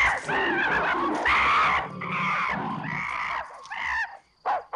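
Ape screaming in a run of high, wavering shrieks while being attacked by a leopard; the cries weaken near the end.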